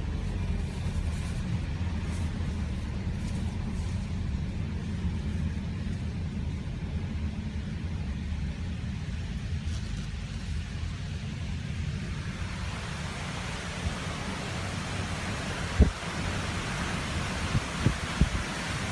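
Car driving with the windows open: steady low road and wind rumble. About two-thirds of the way through, a louder rushing hiss builds, and a few sharp thumps come near the end.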